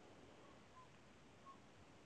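Near silence: faint room tone, with three faint short high chirps.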